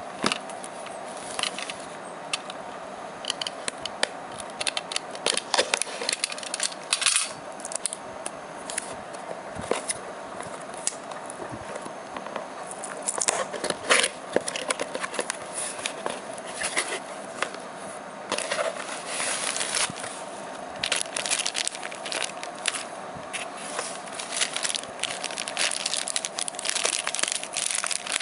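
Cardboard product box and plastic packaging handled by hand: irregular crackling, scraping and small taps. The crinkling of a plastic bag grows denser in the second half.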